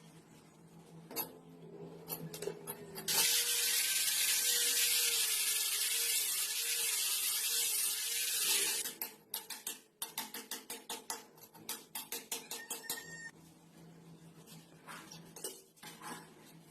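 Galvanized iron pipe fitting work: a few metallic clicks, then a loud steady hiss for about five seconds, then a quick run of metallic clicks, about four or five a second.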